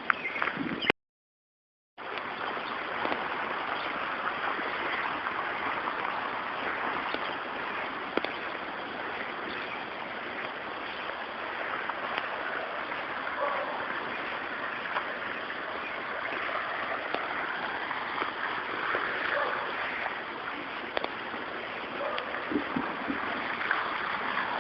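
Steady rushing splash of a water fountain, broken by a second of total silence about a second in.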